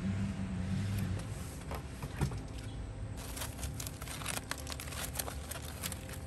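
Aluminium foil crinkling as it is pulled open from around a rack of smoked ribs: a few crackles about two seconds in, then quick dense crackling from about three seconds on. A steady low hum fades out in the first second.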